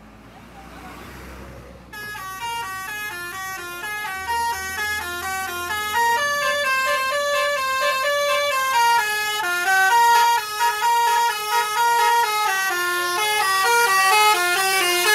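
Multi-tone musical bus horn (the Indonesian 'telolet' type) playing a fast, repeating melody, growing louder as the bus comes closer, with a low engine rumble beneath at the start.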